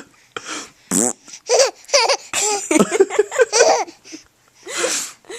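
Baby laughing in short, high-pitched bursts with brief pauses between them.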